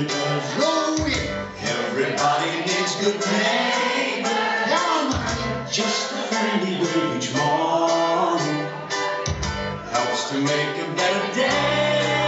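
A pop song with singing voices over a bass line.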